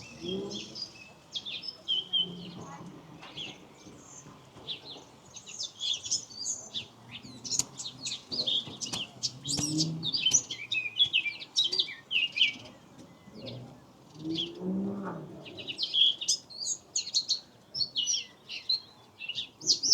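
Small songbirds chirping and singing, a dense run of rapid high chirps and short phrases that is busiest in the middle and again near the end.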